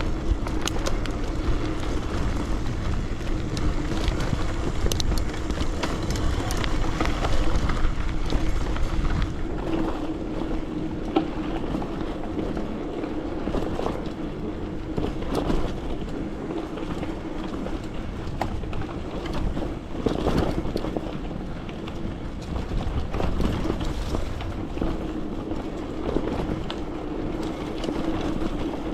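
Riding noise picked up by a bike-mounted camera: steady low wind rumble on the microphone, a constant hum and scattered clicks and rattles from the bike over the trail surface.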